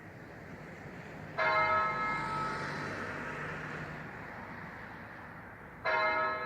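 A church bell tolling: two strikes about four and a half seconds apart, each ringing out and slowly fading.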